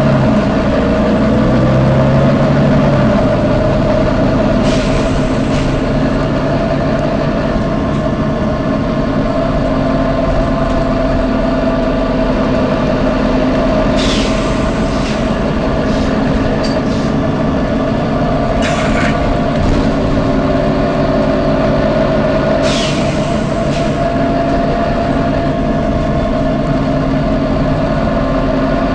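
Volvo B9TL bus's nine-litre six-cylinder diesel running with a steady drone and whine, broken by about five short, sharp hisses of compressed air from the bus's air system.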